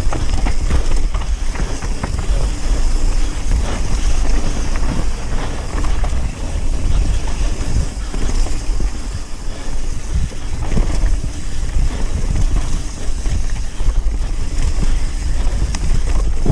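Mountain bike descending a rough trail: tyres rolling over dirt and rock with constant rattles and knocks from the bike, under heavy wind noise on the microphone.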